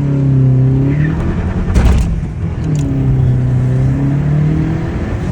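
Turbocharged Honda Civic Si engine, with a newly fitted cold air intake, heard from inside the car while driving. The engine note twice climbs and then sinks slowly, and a short whoosh from the intake and turbo comes about two seconds in.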